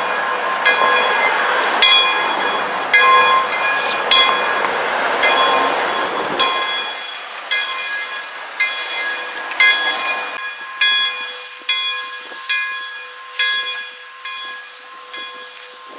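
Steam locomotive bell on Pere Marquette 1225 ringing steadily, about one stroke a second, with a heavy hiss of steam that dies away about six seconds in. The ringing grows slowly fainter toward the end.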